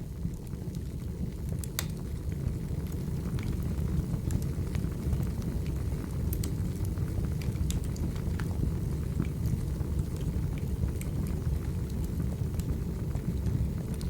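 Wood fire burning: scattered sharp crackles and pops over a steady low rumble.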